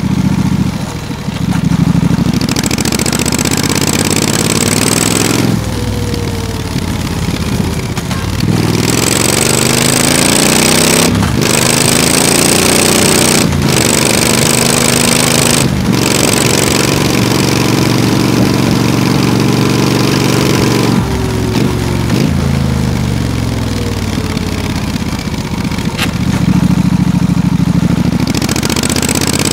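Triumph Street Scrambler's 900 cc parallel-twin engine under way: it pulls hard up through the gears with three quick upshifts in the middle, rolls off with falling revs for bends, and opens up again near the end.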